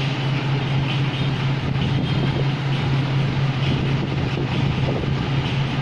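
A steady low motor hum with a constant airy rush, unchanging throughout.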